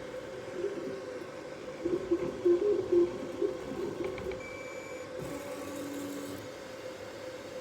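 Dual-extruder 3D printer running: a steady hum under short, quickly changing tones from the stepper motors as the axes move. The tones are loudest in a quick run of moves about two to three seconds in, then give way to a few held tones.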